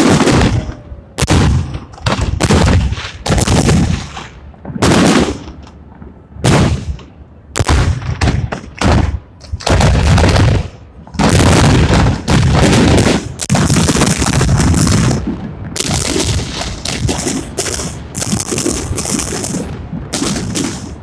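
Fireworks salute: a rapid series of loud bangs from shells bursting overhead, each with a short rumbling tail. About halfway through they pack into a near-continuous barrage of bangs and crackle.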